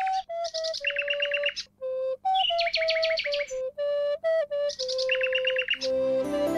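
A flute plays a simple, slow melody, answered three times by bursts of fast, high trilling bird song, like a duet. Near the end a fuller music track with several instruments comes in.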